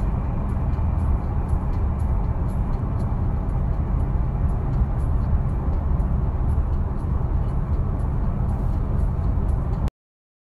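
Steady low rumbling noise with faint high ticks about twice a second; it cuts off suddenly near the end.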